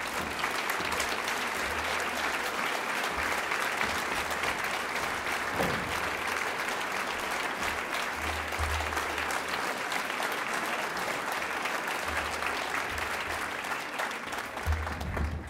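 Audience applauding, a dense, steady clapping that dies away at the very end.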